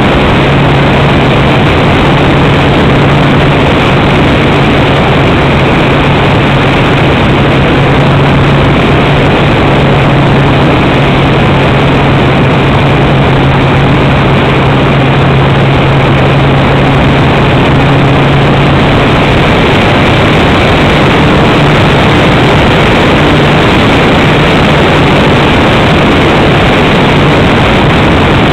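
Onboard sound of a radio-controlled model glider in powered flight: its nose propeller and motor running steadily under loud wind rush over the camera. A steady low drone runs under the rush and turns unsteady about two-thirds of the way through.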